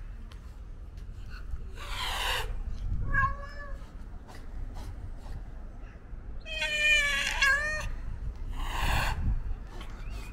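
Ginger-and-white male stray cat hissing and meowing for attention, hungry: a hiss about two seconds in, a short meow a second later, a longer, wavering meow near the middle, and another hiss near the end.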